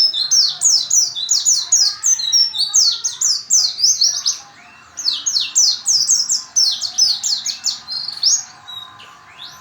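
White-eye (pleci) song: a fast, high twittering of rapid falling notes, in two long runs with a short break about four seconds in. It is the kind of song played as a lure to get a quiet pleci singing.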